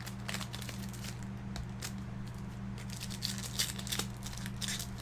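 Plastic and foil card-pack packaging crinkling and rustling in many short crackles as boxes of trading cards are handled and opened, over a steady low hum.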